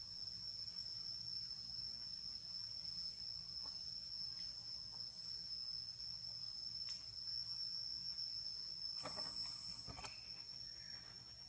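Steady high-pitched insect drone in the jungle trees, cutting out near the end, with a few brief rustling knocks about nine to ten seconds in.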